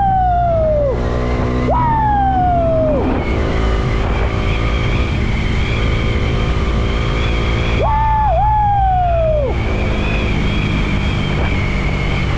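Motorcycle running at road speed, with wind rushing over the rider's microphone. Over it come three falling whistle-like tones, each one to two seconds long: one fading out at the start, one about two seconds in, and one about eight seconds in.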